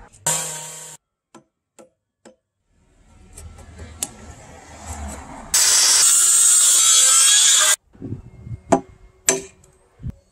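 A handheld circular saw cuts into a timber beam for about two seconds, the loudest sound. After it come several sharp, separate knocks of a chisel being struck into the wood, with a few lighter taps earlier.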